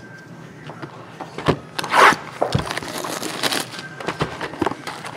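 Hands handling trading card packs and boxes with their plastic wrappers: scattered crinkling rustles and light knocks, the loudest rustle about two seconds in.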